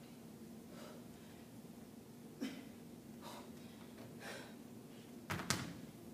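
Heavy breathing in soft exhales about once a second while lifting dumbbells, then a pair of dumbbells clunk down onto the hard floor near the end, the loudest sound.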